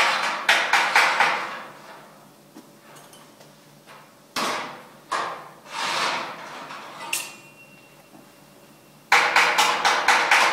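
Fast hand hammering on the steel of a vintage Bentley chassis, about five or six blows a second. It stops about a second in and starts again abruptly about nine seconds in. In the pause come a few short scraping sounds and a single ringing metal ping.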